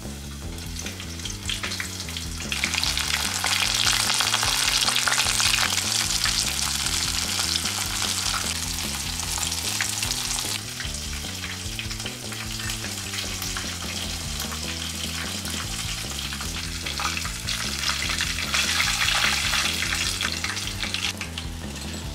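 Pieces of chicken coated in potato starch (katakuri-ko) deep-frying in a pot of hot oil: a dense crackling sizzle that swells loud a couple of seconds in, eases off after about ten seconds, and swells again near the end.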